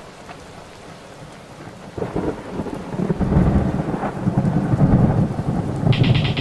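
Low, rumbling thunder-like noise with a rain-like hiss, swelling suddenly about two seconds in. A short, higher patterned sound comes in near the end.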